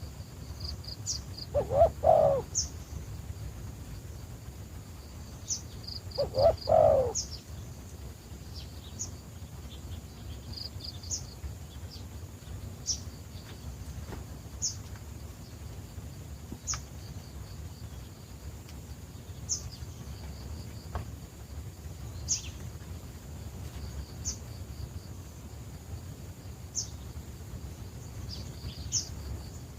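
A dove cooing twice, low calls about two and six and a half seconds in. A small bird's short high chirps repeat throughout over a steady low background noise.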